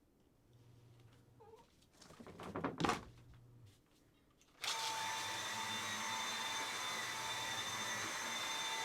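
A small high-speed electric motor switches on abruptly about halfway through and runs steadily with a whine. It follows a short burst of handling noise.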